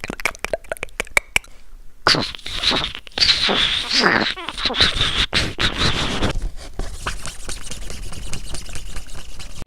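A sound effect performed by a foley artist: a quick run of clicks, then a rough, wavering squeal from about two to six seconds in, then a scratchy scraping noise.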